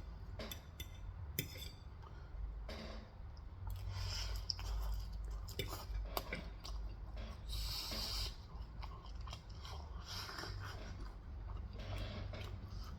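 A person chewing Korean fried chicken close to the microphone, with irregular crunching, wet mouth clicks and bites.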